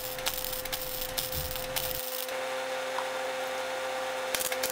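Wire-feed (MIG) welder arc crackling and sizzling steadily while a bead is laid on a steel exhaust downpipe, over a steady hum.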